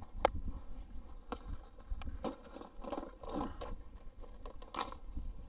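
Wind buffeting the microphone as a low rumble, with scattered short clicks, scrapes and crunches over it.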